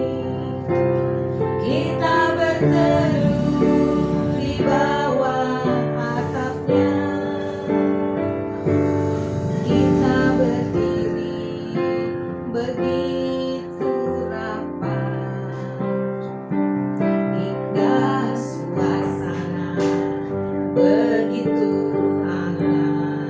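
Digital piano played with chords and melody while women sing along.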